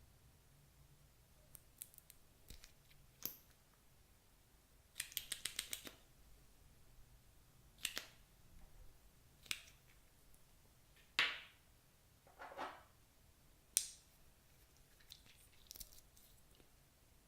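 Scattered sharp clicks and snaps from makeup and slime being handled close to the microphone, including a quick run of about eight clicks about five seconds in and a few louder crackly snaps later on.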